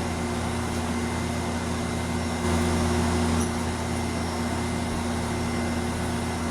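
A steady mechanical hum, like a running fan, with a low drone, briefly louder for about a second midway.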